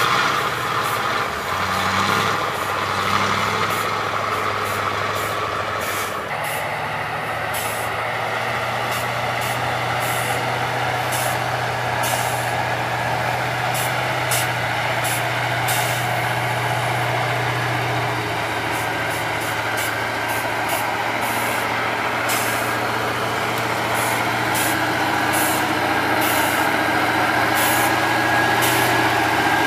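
6x6 Ural trial truck's engine running steadily under load as the truck crawls over rough ground, the drone lifting about six seconds in. Many short, sharp crackles or hisses sit on top of it.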